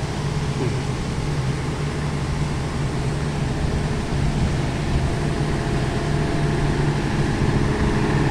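Generator engine running with a steady drone that grows a little louder from about halfway through, over the churning of shrimp-pond paddlewheel aerators.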